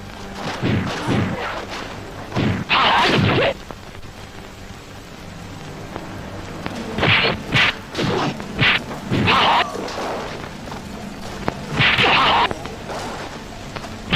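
Dubbed-in karate fight sound effects: a string of punch and kick hits, sharp whacks and low thuds, some with a longer swishing crack, coming in irregular clusters with a quieter gap around the middle.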